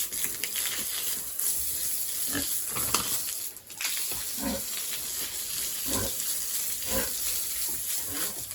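Pigs grunting, short grunts about once a second over a steady hiss.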